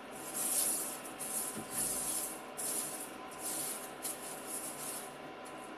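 Spatula stirring and scraping sugar across the bottom of an enamel pot as it melts for caramel. It makes a rasping scrape with each stroke, in a series of strokes somewhat under two a second.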